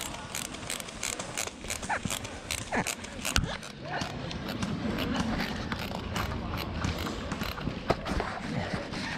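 Footsteps and rattling kit of an airsoft player on the move: irregular sharp clicks and knocks, a few a second, with distant voices now and then.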